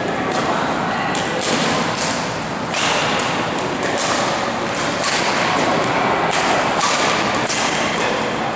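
Badminton rally: rackets striking a shuttlecock back and forth in a series of sharp hits, with the players' footfalls on the court, ringing in a large gym hall.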